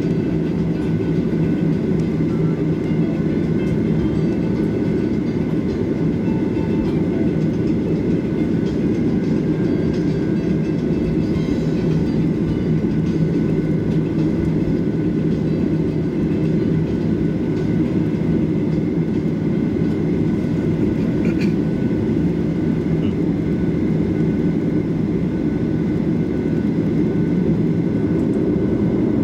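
Cabin noise of a Boeing 737-800 moving on the ground: the steady low hum of its CFM56 jet engines with the rolling rumble of the airframe and landing gear, even in level throughout.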